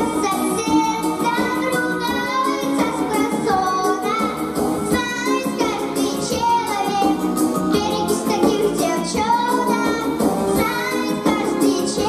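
An eight-year-old girl singing a pop song into a microphone over musical accompaniment with a steady beat.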